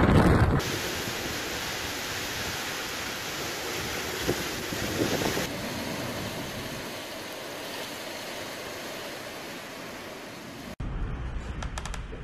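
Hurricane-force wind with a steady, even hiss through thrashing palm trees. Heavy wind buffeting rumbles on the microphone for the first half second and again for the last second or so.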